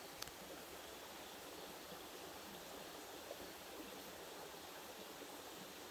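Steady rush of creek water, with a single faint click about a quarter second in.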